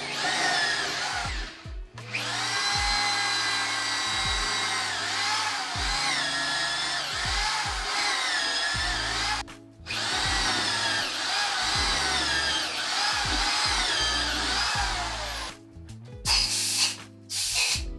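Electric drill boring holes into a reclaimed wooden beam. The motor whine dips in pitch and recovers as the bit bites into the wood, in two long runs with a brief stop about halfway, then a few short bursts of the trigger near the end.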